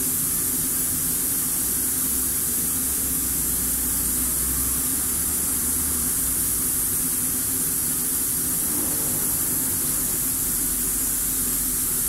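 Steady machine noise: an even hiss with a low hum underneath, unchanging throughout.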